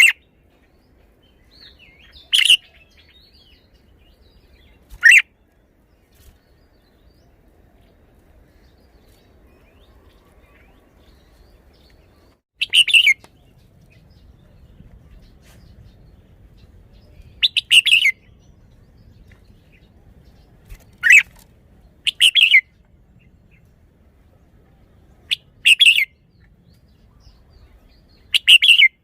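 Red-whiskered bulbul singing short, loud song phrases, about nine of them, each under a second, with pauses of one to several seconds between.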